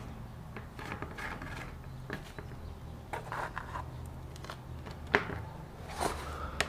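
Scattered light clicks and knocks of plastic motorcycle fairing parts being handled and pushed into place, with two sharper knocks near the end, over a faint steady low hum.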